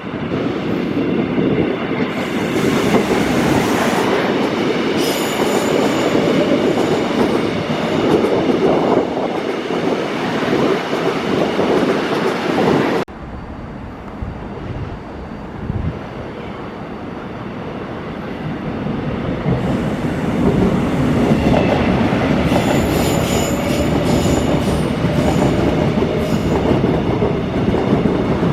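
Electric trains passing on the line: a loud, steady rumble of wheels on rail with a few high whining tones. The sound cuts off abruptly about halfway through, then builds up again as another train comes past.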